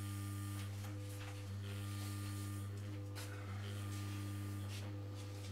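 Background music: a steady low drone with slow, sustained notes above it that change every second or so.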